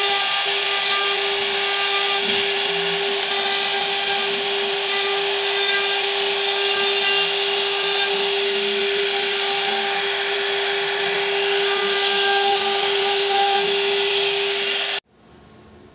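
CNC router spindle running with a steady high whine as its router bit carves grooves into a wooden panel. The sound cuts off suddenly near the end.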